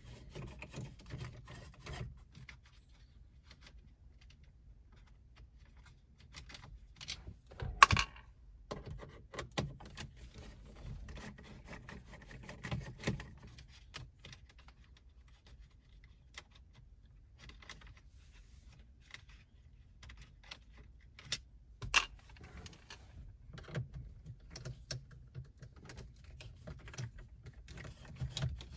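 Screwdriver turning Phillips screws out of a car's dashboard stereo surround, with scattered small metallic clicks and clinks. Two sharper clicks stand out, the loudest about eight seconds in and another a little past twenty seconds.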